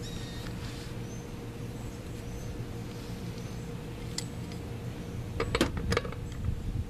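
A few sharp metallic clicks about five and a half seconds in, from a long torque wrench and socket on the front axle nut of a 2000 Mazda Protege as the nut is torqued down. A steady low outdoor rumble runs underneath, with faint high chirps.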